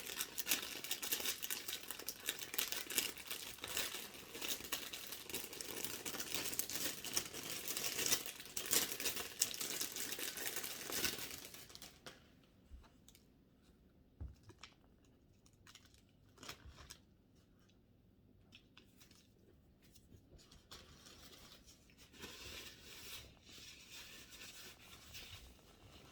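Plastic wrapper of a packaged brownie being torn open and crinkled for about twelve seconds, then only faint scattered clicks and rustles.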